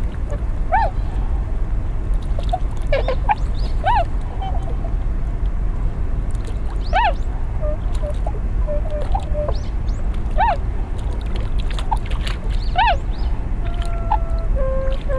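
Whooper swans calling on the water: short hooting calls that rise and fall in pitch, one every second or two, with a few longer flat notes, over a steady low rumble.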